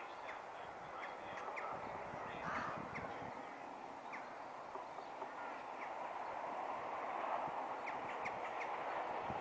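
Outdoor ambience of birds chirping over a steady hiss, with the faint rumble of a distant approaching train swelling over the last few seconds.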